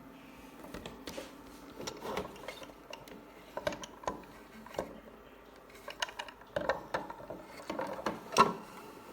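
Irregular clicks and knocks of something being handled, several in quick clusters, the loudest near the end, over a faint steady hum.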